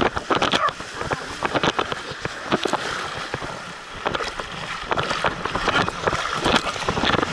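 Sea water splashing and sloshing around a dog as it wades and paddles through shallow surf, heard up close, with many irregular splashes.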